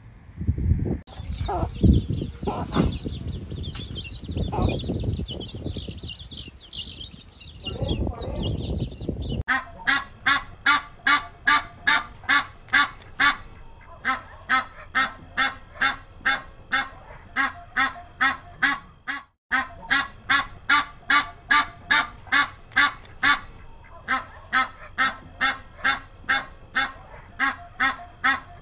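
Low rumbling bursts for about the first nine seconds. Then mandarin ducks call: short calls repeated evenly, about two a second, with two brief breaks.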